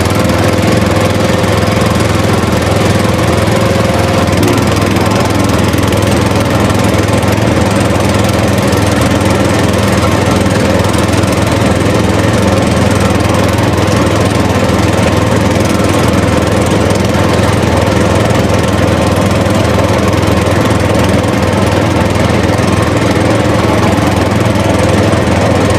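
A motor running steadily, a constant droning hum that shifts slightly in pitch about four seconds in.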